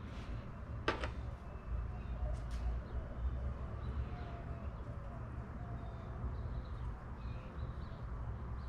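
Small metal parts being handled during pump assembly: one sharp click about a second in, over a steady low hum, with faint bird calls in the background.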